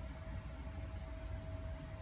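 Steady low background hum with a faint steady whine above it, like a running motor or appliance; no kitten meow is heard.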